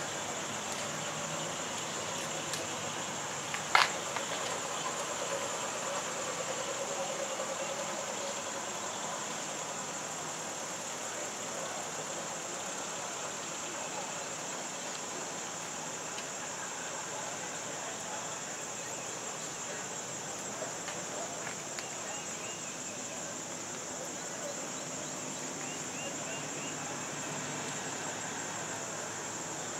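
Murmur of people's voices over a steady, high insect chirring, with one sharp click about four seconds in.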